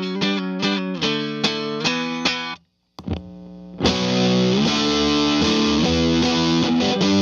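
Electric guitar playing a rhythmic chord riff through fuzz distortion. It cuts out briefly, one note is picked, and about four seconds in a much denser, saturated fuzz sound with heavy hiss takes over, the sound of several fuzz pedals chained in series and switched on together.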